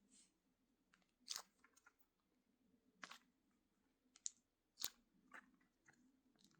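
Faint, scattered crunchy clicks and crackles as a sand-crusted knockoff mini Nee Doh squishy is handled and squeezed, about five sharp ones a second or so apart.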